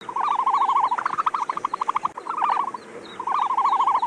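Animal calling in fast trills: about four phrases, each a run of rapid, even pulses at one mid pitch lasting around a second, with a short gap after the third.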